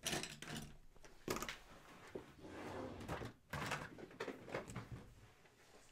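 Faint rummaging and handling noises: a series of short, irregular scrapes and soft knocks as someone searches through desk supplies for a pen.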